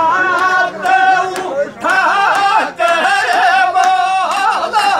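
Men singing a Rajasthani dhamal folk song in held, melismatic lines, accompanied by regular strokes on a chang frame drum.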